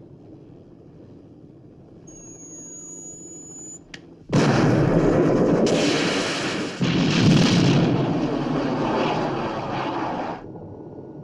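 Film sound effects. Over a quiet underwater hum a thin electronic tone sounds, then a missile bursts out of the sea with a sudden loud rush. About two and a half seconds later the helicopter it hits explodes loudly, and the rumble fades out after a few seconds.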